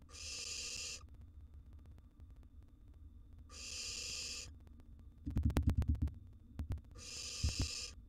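Barn owl nestlings giving drawn-out hissing begging calls, three of them, each about a second long and roughly three seconds apart. A quick run of low thumps comes a little past the middle, with one more near the end.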